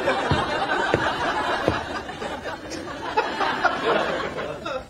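Sitcom studio audience laughing, with a few low thumps in the first two seconds; the laughter stops abruptly near the end.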